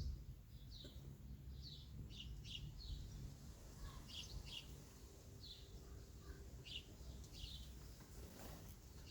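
Birds chirping: short high calls about once or twice a second over a faint low rumble.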